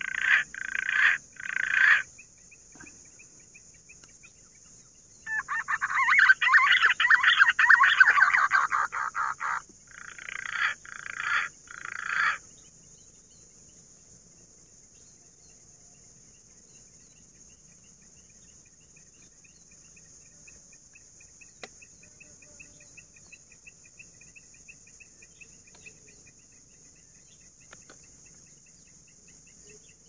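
Green pigeons (punai) calling in harsh rasping notes: three short calls, then a longer rapid rattling call about five seconds in, then three more short calls that stop about twelve seconds in. After that only a faint steady high hiss and faint ticking remain.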